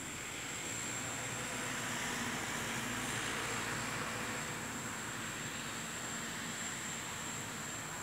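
Small quadcopter drone flying overhead: a hissing whir of its propellers that swells over a couple of seconds and then eases off, over a thin steady high whine.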